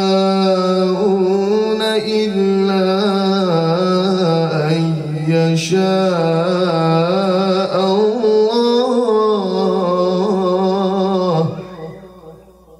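A male qari reciting the Quran in a long, melodic, ornamented phrase, his voice wavering around a held pitch. The phrase ends about a second before the close and fades into room echo.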